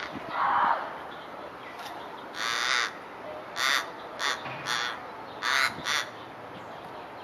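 Australian raven calling with harsh caws: one drawn-out call, then a run of five shorter ones.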